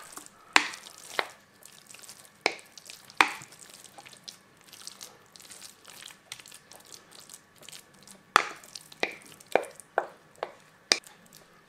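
Soaked-bread pudding mixture being scooped and dropped into a baking dish: scattered short soft plops and light knocks, a few in the first seconds and a quicker run of them near the end.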